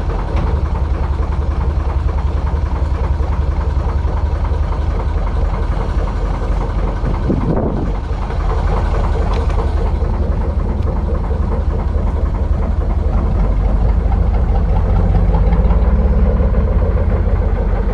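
Narrowboat diesel engine running with a steady low, fast thump, getting somewhat louder from about two-thirds of the way in.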